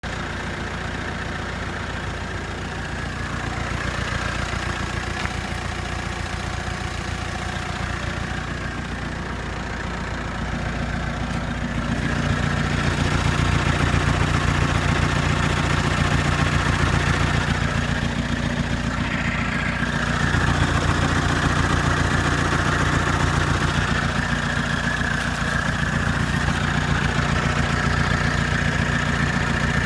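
Audi A4 1.9 TDI diesel engine idling steadily, with an odd noise that the owner calls strange. It grows somewhat louder about twelve seconds in, and again later.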